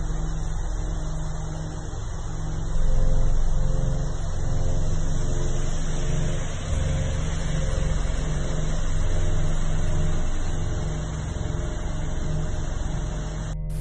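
Cars driving along a flooded street: engine noise mixed with the steady wash of tyres through running water.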